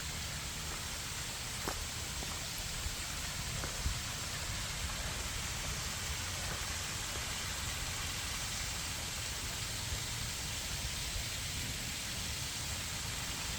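Waterfall: falling water making a steady, even rush, with a couple of faint knocks in the first few seconds.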